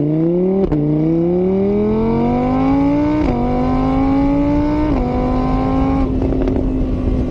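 Car engine accelerating through the gears: its pitch climbs, drops three times at each gear change, then holds steady before cutting off suddenly.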